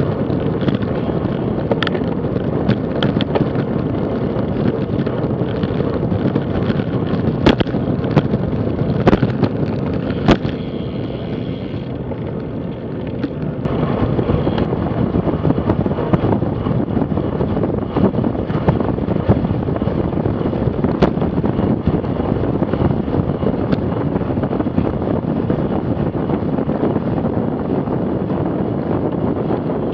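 Steady wind rushing over a bike-mounted action camera's microphone, with road and tyre noise from a road bike ridden at speed. A few sharp clicks come in the first ten seconds, and the rush softens briefly about halfway through before returning.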